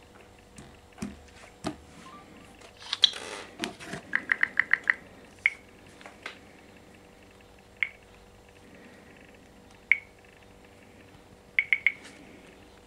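Smartphone handling: light clicks and taps with a brief rustle, then short high electronic beeps from the phones' touch or keypad sounds. There is a quick run of about six beeps, then single beeps every couple of seconds, and three together near the end.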